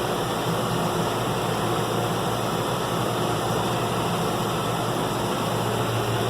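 John Deere 6105M tractor's diesel engine running steadily while driving, heard from inside the cab, with an even rushing hiss over its low hum.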